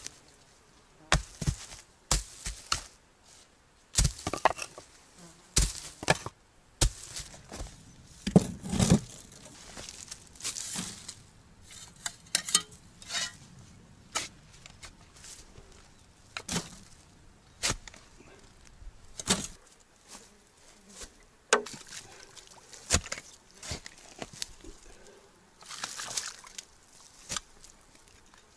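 Pick blows striking and digging into soil, coming irregularly about a second apart with short pauses, with one heavier thud near the middle.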